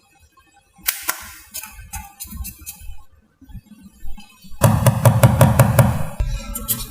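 Scattered sharp knocks and clicks, then a loud rapid run of strikes, about six a second, lasting about a second and a half past the middle.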